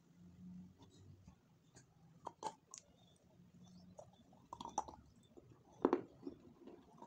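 Close-up chewing and wet mouth sounds of someone eating soft chocolate cake, with scattered lip smacks and clicks, the loudest about six seconds in.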